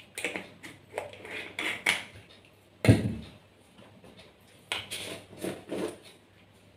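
Small spice jars being handled on a table: scraping and clicking of lids and glass, a single knock about three seconds in as a jar is set down, then more scraping and clicking as a screw-top jar lid is twisted open.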